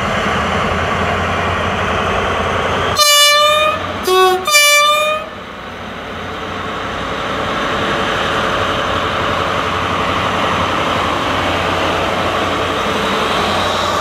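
DB class 218 diesel-hydraulic locomotive's V12 engine running steadily as it draws near and passes at walking pace with a double-deck train. About three seconds in, a horn sounds three times, high, low, high, the middle blast short.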